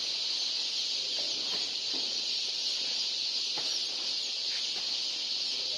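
Massed peeping of many day-old chicks, a steady high-pitched chorus, with a few faint knocks.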